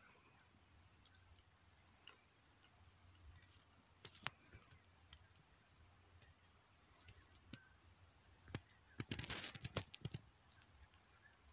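Near silence, broken by a few faint clicks and a short patch of crackling about nine seconds in.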